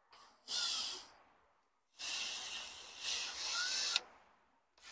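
Power drill running in two bursts: a short one about half a second in, then a longer run of about two seconds, with a faint rising whine as the motor spins up.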